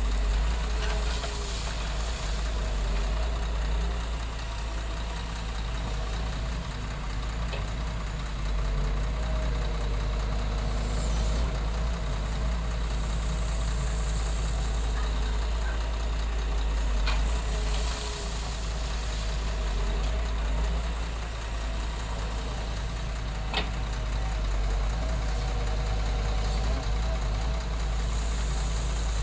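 Heavy diesel engine of an excavator running steadily with a deep hum, with a few sharp knocks in the second half.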